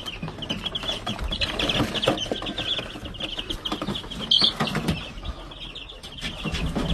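A batch of young chicks peeping in quick, high, continuous chirps, with scattered knocks and clatters from them being handled and moved.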